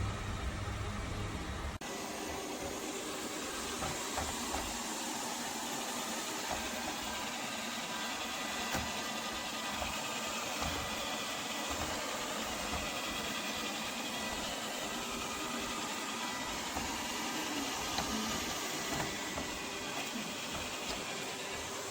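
Lefant M210 Pro robot vacuum running: a steady whirring hiss from its suction motor and brushes, with an abrupt change in the sound about two seconds in.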